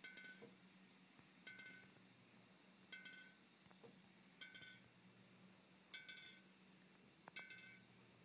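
An empty metal can resting on a sleeping cat clinks faintly as the cat breathes. Each breath gives a short cluster of small metallic taps that ring and fade, about every one and a half seconds, six times in all.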